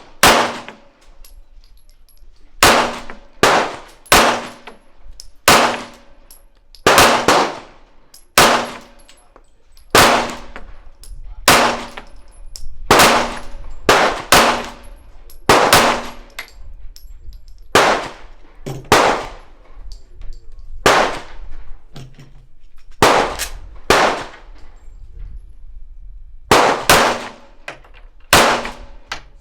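Gunshots, about thirty, fired singly and in quick pairs at an unhurried pace, each with a short ringing echo.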